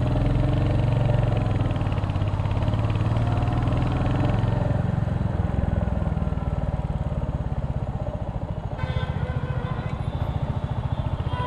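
Royal Enfield Hunter 350's single-cylinder engine running under the rider, pulling steadily in traffic, then dropping in pitch about five seconds in as the throttle eases off.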